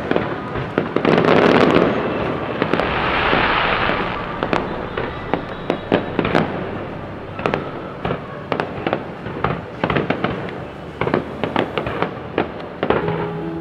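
Fireworks display: a long run of sharp bangs and pops, with a dense crackling swell about one to four seconds in.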